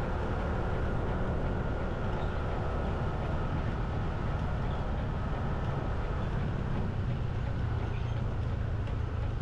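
Steady low rumble of a vehicle driving through city traffic: engine and road noise with no sharp events.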